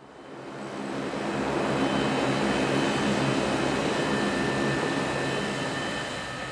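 Twin-engine turboprop airliner's engines running: fades up from silence over the first second or so into a steady, loud propeller drone with a high turbine whine on top.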